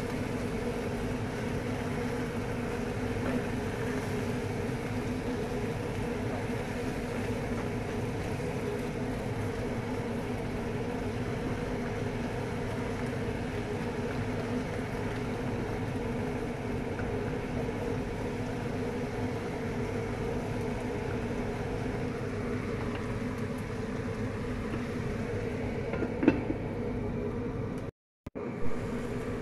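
Steady hum with a hiss over it while chicken and vegetables fry in a pan on a gas stove. A single clunk near the end as the glass lid goes onto the pan.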